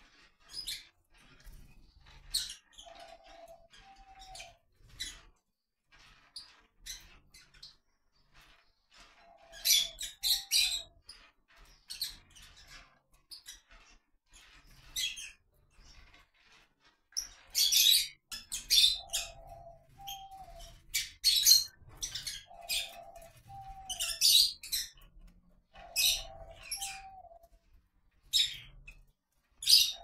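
Lovebirds chirping: many short, sharp, shrill chirps in quick clusters, busier in the second half. A lower two-part call recurs several times among them.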